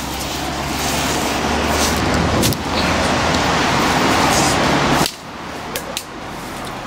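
Motor vehicle traffic passing: a steady low engine hum under tyre and road noise, building for about five seconds and then cutting off abruptly. A few sharp clicks run through it.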